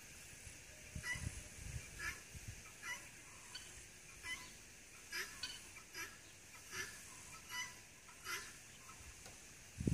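Domestic guinea fowl calling: a run of about a dozen short, sharp calls repeated a little under once a second, stopping a second or so before the end.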